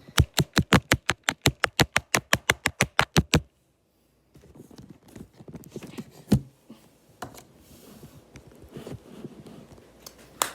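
A quick, even run of about twenty sharp taps, roughly six a second, that stops suddenly after about three and a half seconds. After that there is faint handling rustle with a few single knocks.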